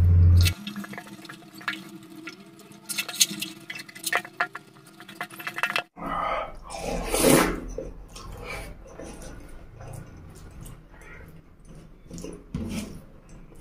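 Close-miked wet eating sounds: chewing and lip smacks while rice is squished into curry gravy by hand, as scattered clicks and squelches, with a louder wet burst about seven seconds in.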